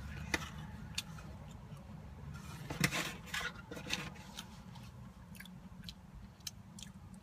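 Close-up chewing and crunching of crispy fried food, with scattered mouth clicks and a denser run of crunches about three seconds in, over a steady low hum.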